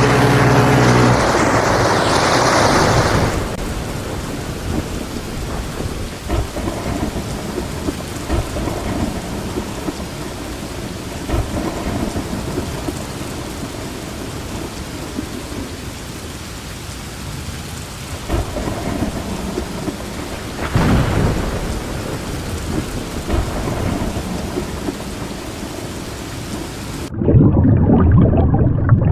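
Steady rain with low rumbling thunder, the sound of a thunderstorm. It swells louder once about three-quarters of the way through, and near the end turns abruptly muffled and lower.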